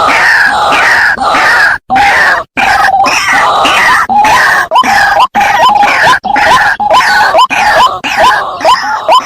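White-breasted waterhen calling loudly and repeatedly: first a dense run of overlapping croaking notes, then from about four seconds in a quickening series of short upward-hooked notes, two to three a second. A few abrupt gaps break the calling, typical of an edited lure recording.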